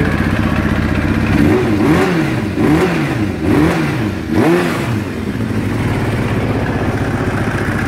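Kawasaki ZX-7R (ZX750 J1) inline-four engine idling, then revved in about four quick throttle blips that each rise and fall in pitch, before settling back to a steady idle.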